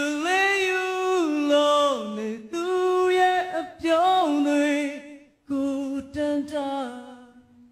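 A male vocalist sings a Burmese song into a microphone in long held notes with slight vibrato. The phrases are broken by short pauses, and no instruments are heard.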